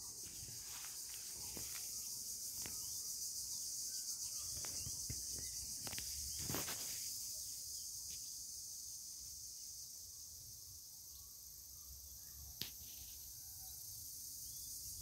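Steady high-pitched insect chorus, with a few faint rustles and one sharp click near the end.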